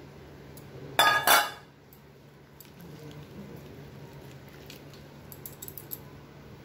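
Two quick metallic clanks from a stainless steel bowl about a second in, ringing briefly. After that come faint clicks as a hand stirs chopped mushrooms in water in the bowl.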